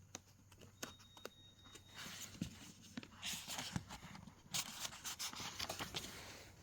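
Handling noises: scattered clicks and light knocks with several bursts of rustling, as kit parts and their packaging are moved about.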